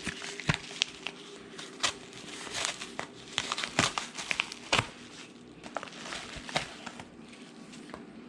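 A mail package being opened by hand: irregular crinkling and rustling of packaging, with sharp snaps and crackles, busiest in the first few seconds and thinning out toward the end.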